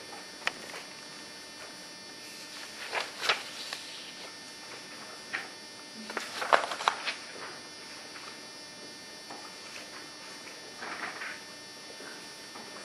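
Dry-erase marker squeaking and tapping on a whiteboard in short, scattered strokes, loudest about six and a half seconds in, over a steady background hum.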